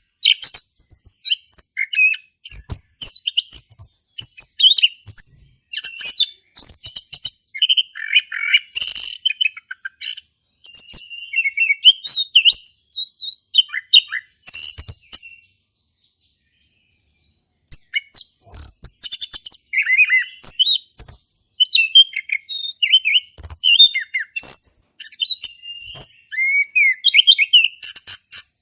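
Male chestnut-capped thrush (anis kembang) in full, loud song: a rapid, varied stream of high whistled and chattering phrases, with a brief pause about two-thirds of the way through.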